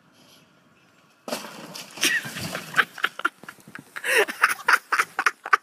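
A sudden rush of noise starting about a second in, with excited shouting and rapid bursts of laughter over it.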